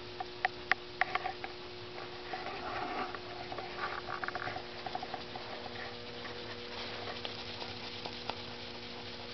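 Small homemade live-steam engine running almost silently: faint irregular clicks in the first second or so, then a light fast patter of ticks, over a steady hum.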